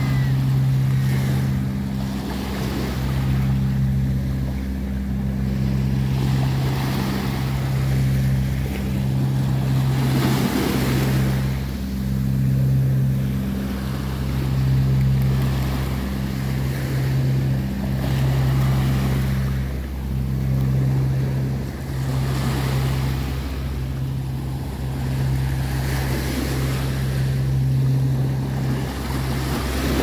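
Small waves breaking and washing up over sand and around rocks, swelling every few seconds. Under them runs a steady low engine hum.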